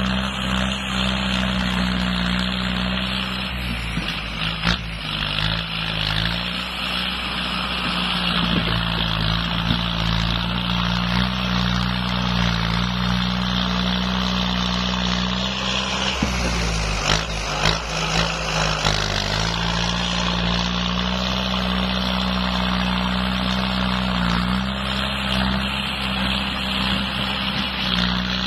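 Kubota M8540 tractor's four-cylinder diesel engine running steadily while working a front dozer blade through soil and rock. The engine note sags and recovers twice, about four seconds in and again past halfway, with a few sharp knocks over it.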